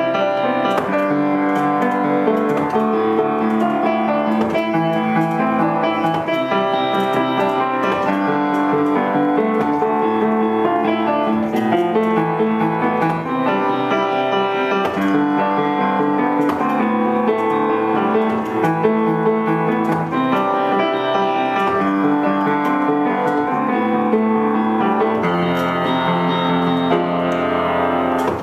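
Upright piano played by a child with both hands, an unbroken stream of notes.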